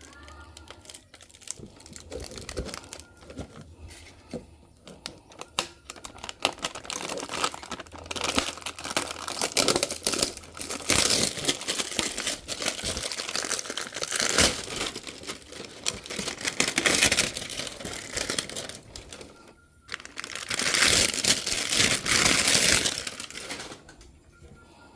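Packaging wrap being crinkled and torn open by hand during the unboxing of a motorcycle exhaust, a dense run of crackling, louder from about a third of the way in, with a short break near the end.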